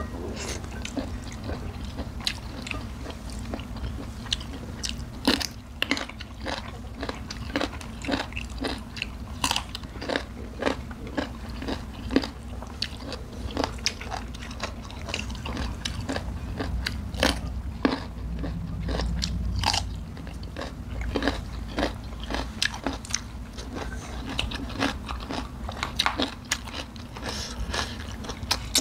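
Close-miked eating: sharp, irregular crunches and chewing as food is bitten, over a low steady hum.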